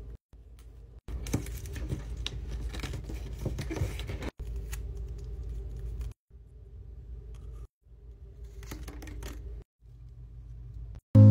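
Close-up sounds of a paper strip being split and folded by hand: irregular crackling, rustling and snipping over a low steady hum, in short clips broken by abrupt cuts.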